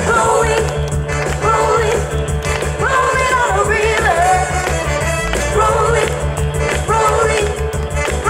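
A young girl singing live into a microphone over backing music with a steady, pulsing bass beat, through stage speakers.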